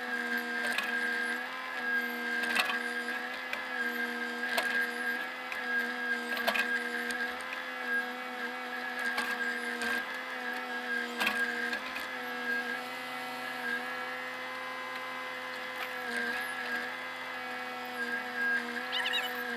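Bobcat mini excavator's diesel engine and hydraulics running steadily under load, heard from inside the cab, with sharp knocks and clanks every second or two as the bucket digs in mud. The engine note shifts slightly about twelve seconds in.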